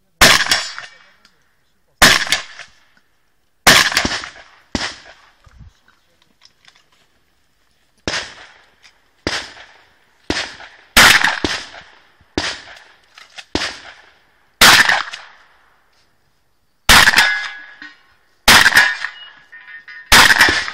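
Shotgun fired repeatedly: about sixteen sharp shots, some in quick strings half a second to a second apart, others with pauses of two to three seconds between, each trailing off in an echo. The last few shots leave a metallic ring behind them.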